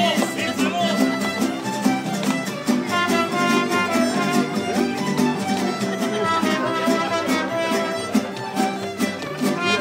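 Live mariachi band playing, with violins carrying the melody over guitars strumming a steady rhythm.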